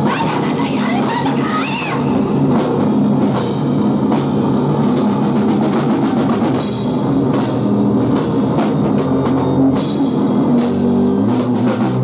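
Live rock band playing loud: drum kit, electric bass and electric guitar together, with a woman singing into a microphone in the first couple of seconds.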